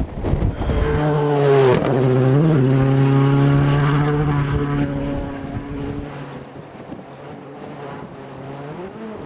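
Rally car engine running hard past the stage side, with a brief dip in revs about two seconds in, then holding its note and fading into the distance. Wind rumbles on the microphone at the start.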